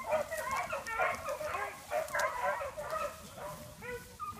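A pack of small male beagles baying together as they run a rabbit, many voices overlapping with no break, easing slightly near the end.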